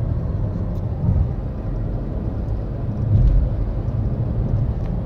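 Steady low road and tyre rumble inside the cabin of a Chevy Volt cruising at about 50 mph on battery power, with no engine running.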